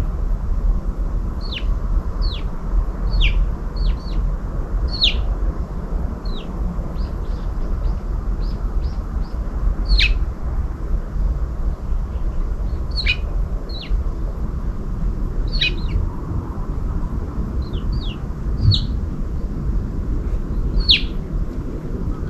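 Small birds chirping: short, quick calls that drop in pitch, repeated irregularly, over a steady low rumble.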